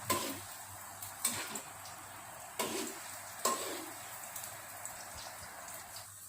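Chopped bawang frying in oil, sizzling faintly in a pan, with four sharp knocks of a stirring utensil against the pan in the first few seconds.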